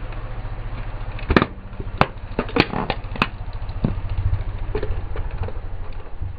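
A car tyre rolling over a hollow plastic toy shark and crushing it, with four sharp cracks about half a second apart starting a second and a half in, then smaller crunches. A car engine idles low throughout.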